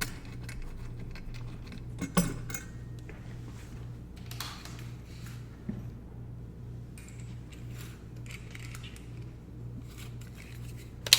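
Small metal screws and bracket hardware clinking and rustling as they are handled and set in place, with scattered light clicks and a sharper click about two seconds in, over a steady low hum.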